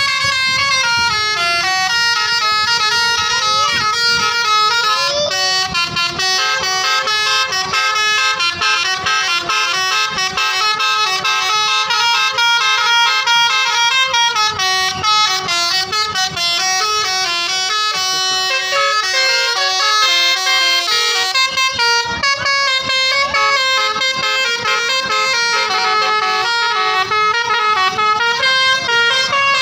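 Basuri 'telolet' musical horn on a tour bus playing a melody, its notes stepping up and down in quick succession without a break.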